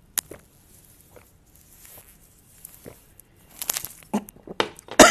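A man drinking from a bottle: scattered wet mouth and swallowing clicks, growing busier about three and a half seconds in, with a loud sharp sound right at the end.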